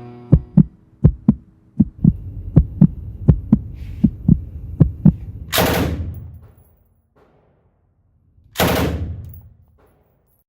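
A run of low, evenly spaced thumps, about two a second, over a faint drone, then two loud crashing hits about three seconds apart, each dying away over about a second.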